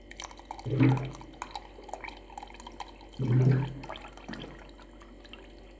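Cold water being poured to mix a sachet drink powder: splashing and spattering, with louder low-pitched surges of the pour about a second in and again near three and a half seconds.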